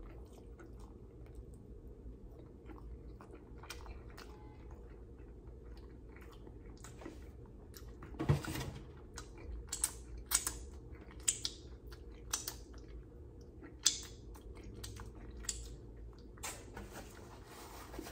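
Close-up mouth sounds of a man chewing barbecue rib meat: irregular wet smacks and clicks of the lips and tongue, with a few louder smacks, one about eight seconds in and one near fourteen seconds as he kisses his fingertips.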